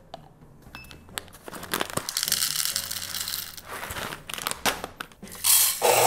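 Coffee beans rattling as they are poured into a dosing cup on a scale. Near the end a coffee grinder runs briefly and loudly.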